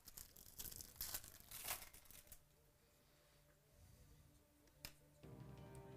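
Trading cards and their packaging being handled: short rustling and sliding noises over the first two seconds, then a single sharp click about five seconds in. Faint background music comes in near the end.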